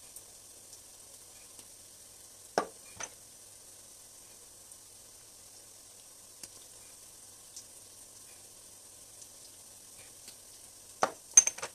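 Palm oil stew base frying in a steel pot, a faint steady sizzle. Over it come sharp clacks as glass spice jars are handled: two about two and a half seconds in, and a louder cluster near the end.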